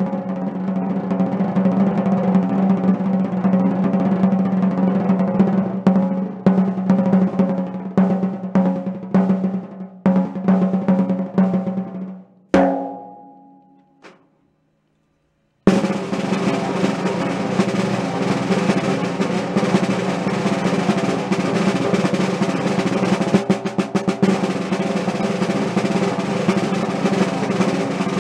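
1938 Leedy Broadway Parallel snare drum, freshly restored, played with drumsticks in rolls and strokes. About twelve seconds in, a last stroke rings and dies away. After a brief silence, a dense, steady roll starts up again.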